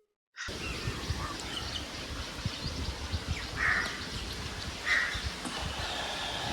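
Rural outdoor background noise with a low rumble, and two short bird calls, about three and a half and five seconds in.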